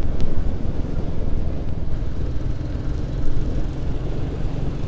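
Motorcycle riding at a steady cruise: a steady low rumble of engine, wind and road noise.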